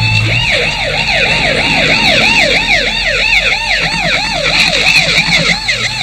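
Emergency-vehicle siren: it finishes a rising wail, then about half a second in switches to a fast yelp that sweeps up and down about three times a second.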